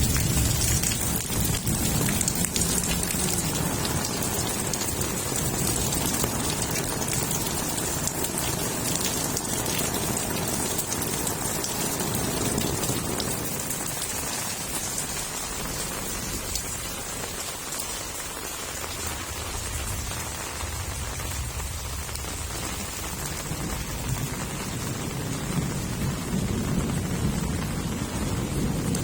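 Heavy rain pouring steadily, with low rolls of thunder fading away in the first few seconds and building again near the end.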